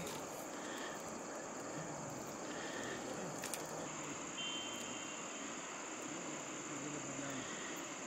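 Faint, steady high-pitched chorus of crickets at night, with an occasional faint crackle from a stick-wood campfire.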